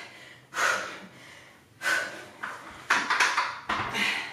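A woman's heavy breathing during dumbbell chest presses: a sharp exhale with each rep, about a second apart, then quicker breaths and a knock as the dumbbells are set down near the end.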